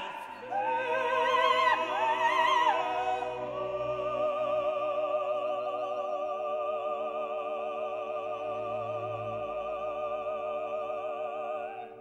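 Background music: an operatic voice sings with wide vibrato over orchestral accompaniment, moving through a few phrases and then holding one long note. The music fades out near the end.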